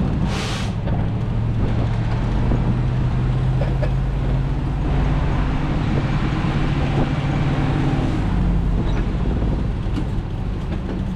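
Off-road hunting buggy's engine running steadily while driving, its pitch shifting a little. There is a short burst of hiss near the start.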